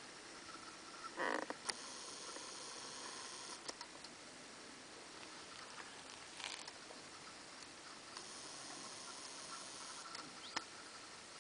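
Faint outdoor background with camcorder handling noise: a short rustle a little over a second in, a few sharp clicks, and a soft whirr of the zoom motor twice, about two seconds in and again after eight seconds.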